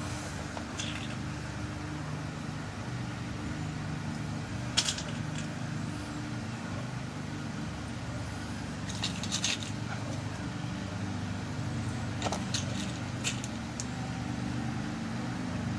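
Small, faint metallic clicks of tiny brass lock pins being set into the pin chambers of a lock cylinder during rekeying: one about five seconds in, a quick cluster around nine seconds, and two more later. Under them runs a steady low hum.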